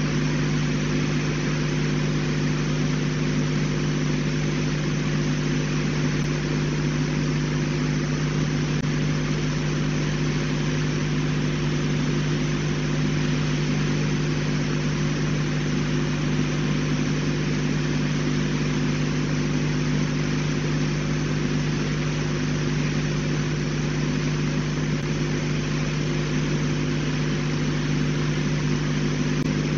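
Steady machine-like hum, made of several constant low tones over an even hiss, unchanging throughout; no bird calls.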